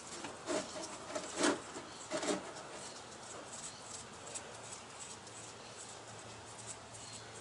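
Gloves being pulled on over the hands: three short squeaky, rubbery stretching sounds in the first couple of seconds.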